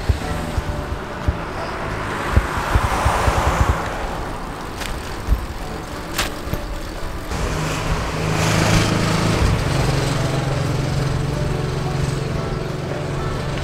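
Road traffic going by: one vehicle passes about two to four seconds in, and from about eight seconds in a louder one comes up with a steady low engine hum. There are two short clicks in between.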